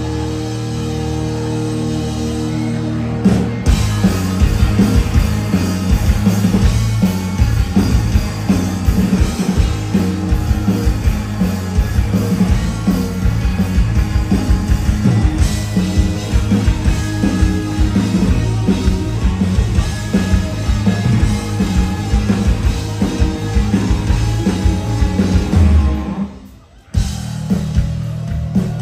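Live rock band, with electric guitars, bass guitar and drum kit, playing loud through a festival PA. It opens on held, droning chords; the drums and full band come in about three seconds in. Near the end the band stops dead for about a second, then crashes back in.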